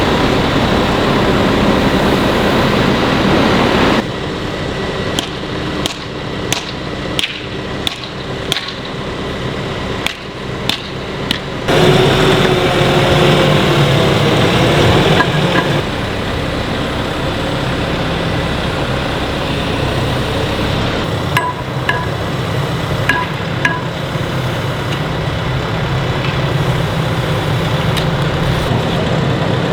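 Wheeled excavator's diesel engine running steadily, with a series of sharp knocks, about a dozen, between four and twelve seconds in, and a few short clinks later on.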